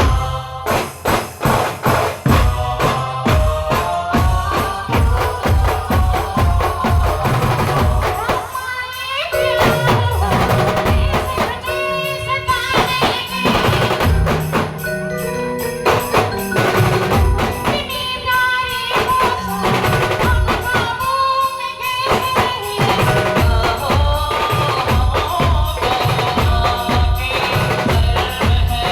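A band playing loudly: fast, dense drumming throughout, and in the middle a melody of held, wavering notes over the beat.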